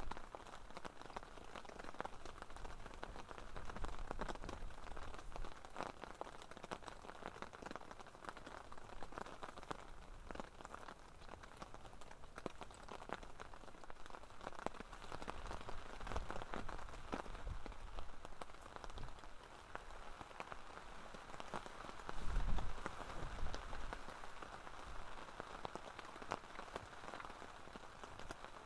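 Steady rain falling, with many scattered drops pattering. A brief low rumble about three-quarters of the way through is the loudest moment.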